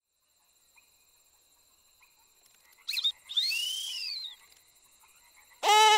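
Faint night ambience with a thin steady high tone. About three seconds in comes a short chirp, then a whistling sound that rises and falls over about a second. Near the end, a cartoon insect's squeaky, chirping voice starts up.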